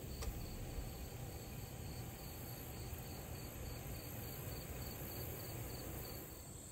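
Crickets chirping in a steady, evenly pulsed rhythm, several chirps a second, over a low rumble.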